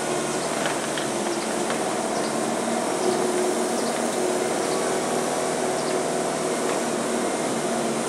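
Bobcat skid steer's diesel engine running steadily under working load as the loader moves and tilts its bucket, with a few faint ticks over the drone.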